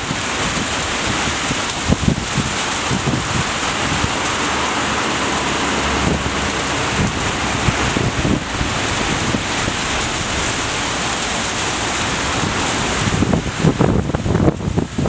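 A steady loud hiss runs throughout while an R160A-1 subway train approaches on elevated track. The train's low, uneven rumble and clatter grow stronger near the end.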